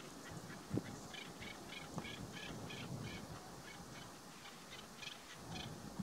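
Partridge calling a quick series of short, repeated chuck notes, about four a second for a couple of seconds, then a few scattered notes. A low thump comes just before the calls begin.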